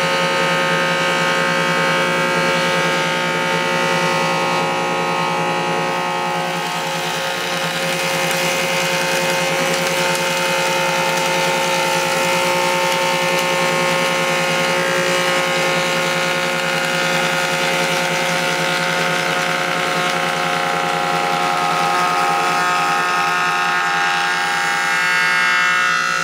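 Old Krumrein & Katz jointer planing a wide ash board, its three-knife cutter head taking a 3 mm cut. A steady whine of the spinning cutter head under load, with the hiss of the cut.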